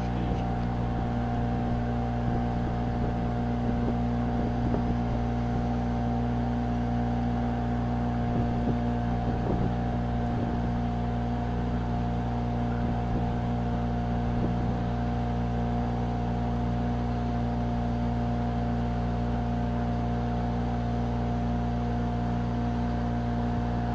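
Boat engine running steadily while cruising, heard from on board: a constant drone with several even, unwavering tones.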